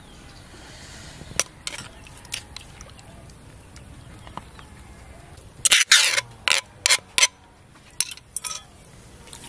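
Metal spoon scraping and knocking against a clay mortar while sauce is emptied out: scattered light clicks, then a quick run of about five sharp knocks a little past halfway.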